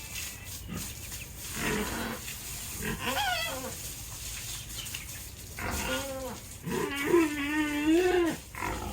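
Pig squealing: several short calls, then a longer wavering squeal of about a second and a half near the end.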